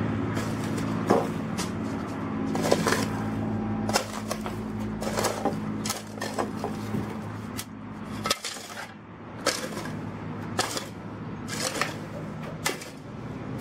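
A motor runs with a steady hum and cuts off suddenly about eight seconds in. Sharp metallic clinks and knocks sound throughout, typical of tools and metal being handled on a work site.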